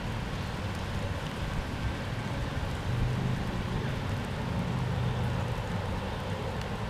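Steady hiss of rain, with a road vehicle passing. Its low rumble swells about three seconds in and fades a couple of seconds later.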